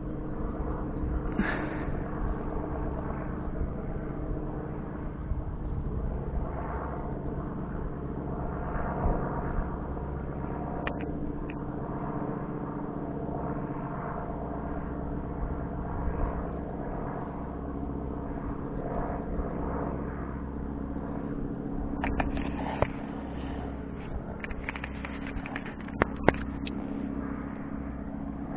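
A 3D-printed P-51 Mustang model's motor running steadily, spinning a 10x7 propeller in a propeller test, with a few sharp clicks near the end.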